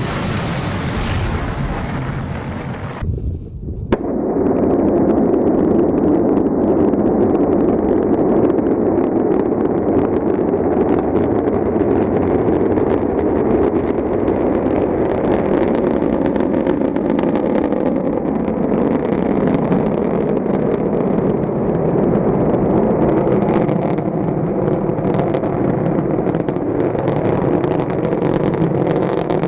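Loud, steady rushing roar of a rocket's exhaust and fire. It breaks off suddenly with a sharp click about three to four seconds in, then goes on as a deeper roar.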